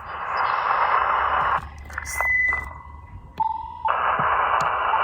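Band noise hiss from the speaker of an Elecraft KX2 HF transceiver. The hiss cuts out for about two seconds while the rig tunes the antenna, with a higher beep in the gap and then a short lower one, before the hiss comes back.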